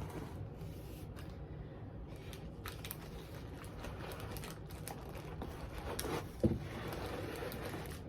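Items being handled and taken out of a box: faint crinkling and scattered small clicks and taps, with one louder knock about six and a half seconds in.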